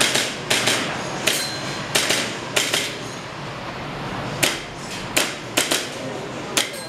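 Airsoft pistol firing: about a dozen sharp cracks, mostly in quick pairs, with short pauses between strings as the shooter moves.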